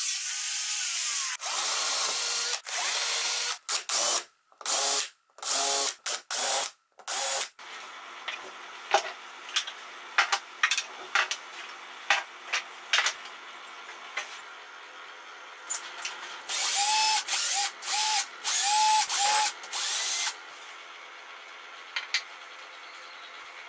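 An angle grinder cuts through steel screws set in wooden dowels in short whining bursts that break off abruptly, followed by a quieter stretch of clicks and handling. Later a power drill is run in about five short bursts, each spinning up with a rising whine.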